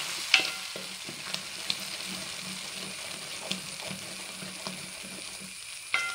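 Ground ripe jackfruit pulp sizzling in ghee while being stirred and scraped around a metal pan, with sharp clicks of the utensil against the pan now and then. The light crackling comes from the fruit's own water cooking off in the hot ghee.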